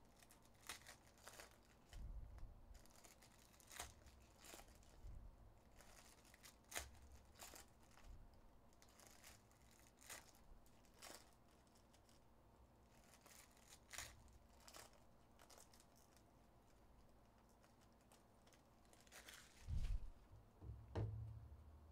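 Foil trading-card packs being torn open and crinkled by hand, faintly, in a string of short rips and crackles, with a few low thumps near the end.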